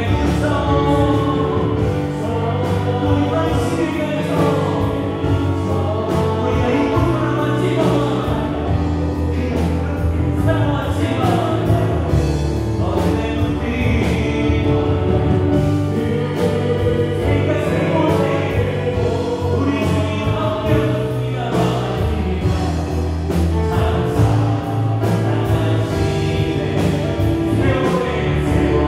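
Live worship band playing a praise song at a steady level: electric guitar, bass guitar, drum kit and keyboards.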